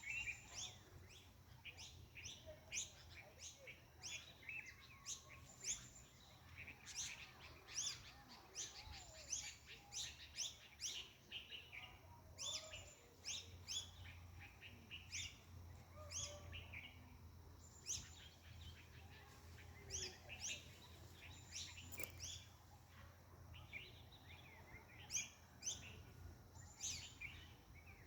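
Several birds chirping and calling, with many short high notes coming in quick, irregular runs, over a faint low hum.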